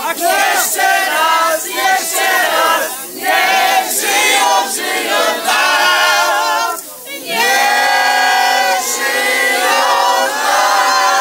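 A crowd of men and women singing together loudly, many voices at once, with short breaks about three and seven seconds in.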